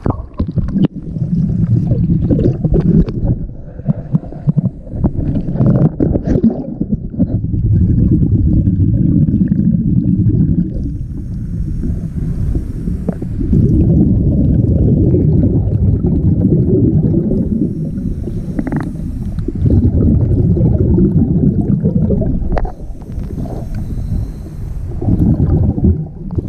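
Muffled underwater sound heard through a camera housing: a diver's exhaled regulator bubbles rumbling and gurgling, swelling in long bursts every five or six seconds in time with the diver's breathing.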